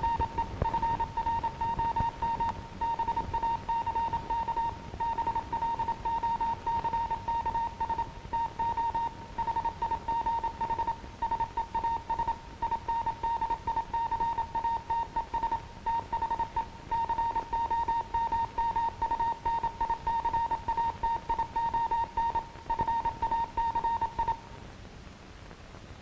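Morse code sent as a keyed tone of about 1 kHz, short and long marks in quick succession, over the steady hiss of a 16mm optical film soundtrack. The keying stops near the end.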